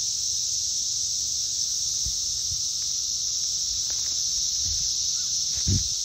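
Dense chorus of periodical cicadas: a loud, steady, high-pitched buzz with no break, with a short low thump just before the end.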